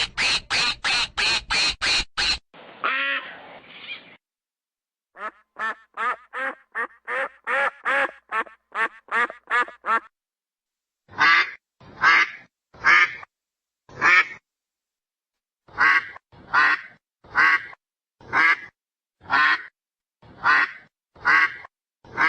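Ducks quacking in several separate series: a fast run of quacks, a longer drawn-out call, another quick run, then single quacks about a second apart, with short silent gaps between the series.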